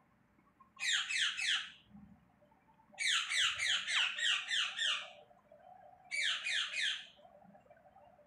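Rose-ringed (Indian ringneck) parakeet squawking in three bouts of rapid, harsh repeated calls, about five a second. There is a short run about a second in, a longer two-second run from about three seconds, and another short run near the end.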